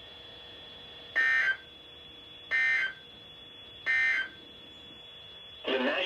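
Three short, buzzy bursts of SAME digital data tones from weather radio speakers, evenly spaced about a second and a half apart. This is the end-of-message code that closes an Emergency Alert System weather alert.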